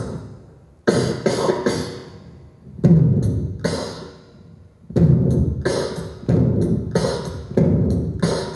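Beatbox-style percussion: booming drum-like hits, each with a long ringing decay, coming in short groups of two or three with gaps between, then a denser run of hits from about five seconds in.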